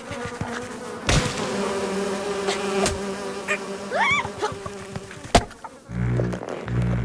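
Cartoon sound effect of a buzzing insect: a steady buzz, punctuated by a few sharp knocks and a short whistle that rises and falls about four seconds in. Near the end come low pulsing tones.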